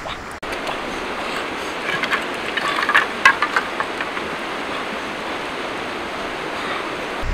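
Green bamboo stalks knocking and clattering together as they are handled, in a cluster of sharp clicks about two to three and a half seconds in, over a steady rushing background.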